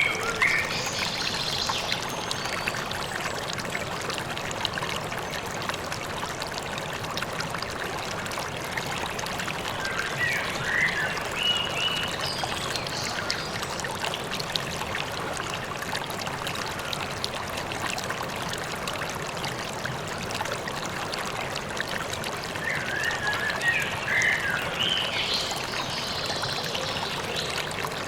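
River water running steadily, with small birds chirping in short bouts three times: at the start, about a third of the way in, and near the end.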